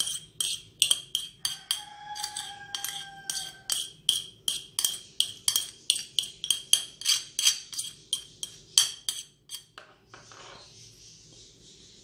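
Metal spoon repeatedly scraping and tapping against a plate, knocking a dry egg-and-powder mix off it into a bowl, about three to four strikes a second, with a faint ringing about two seconds in. The tapping stops near the end, giving way to a soft hiss as the powder slides off the tilted plate.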